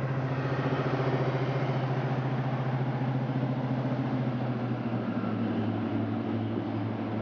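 Class 55 Deltic diesel locomotive, with its Napier Deltic two-stroke engines, working as it pulls a train out past the platform: a steady, fast-pulsing engine drone. The note shifts and eases slightly about halfway through as the locomotive draws away and its coaches follow.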